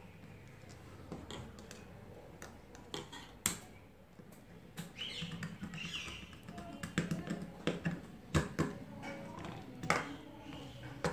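Screwdriver working the terminal screws of a plastic modular switch board while wiring it: scattered sharp clicks and taps of metal on metal and plastic, with the board and wires being handled between them.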